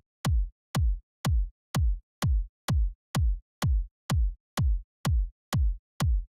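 Electronic kick drum sample repeating in a steady four-to-the-floor pattern from a drum machine sequence, about two hits a second. Each hit is a sharp click that drops into a deep thump.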